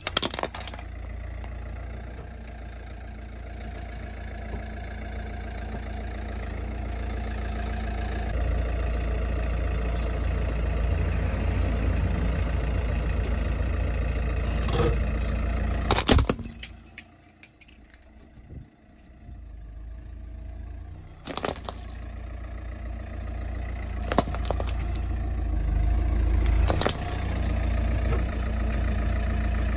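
A car engine idling with a steady low rumble while its tyre rolls over plastic toys on brick paving. Sharp cracks of hard plastic breaking come near the start and several more times in the second half, with a short lull in the engine sound about seventeen seconds in.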